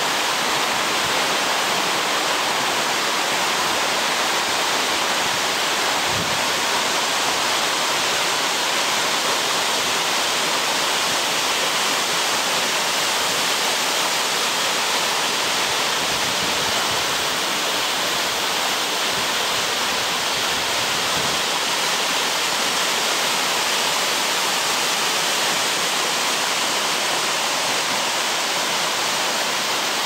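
Waterfall pouring down a rock face into a plunge pool: a steady rush of falling water.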